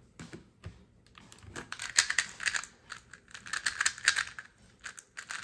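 MGC Elite 2x2 speed cube being turned at speed during a solve: a fast run of plastic clicking and clacking that starts a little over a second in and lasts about three seconds.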